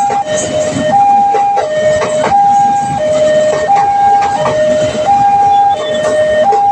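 Railway level crossing warning siren sounding a loud two-tone alarm, alternating steadily between a higher and a lower tone, each held about two-thirds of a second, warning of an approaching train.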